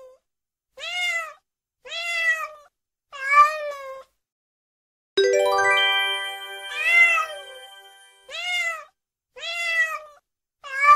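Domestic cat meowing again and again: seven drawn-out meows, each rising and then falling in pitch. About five seconds in, a bright chime rings out and fades slowly beneath the meows.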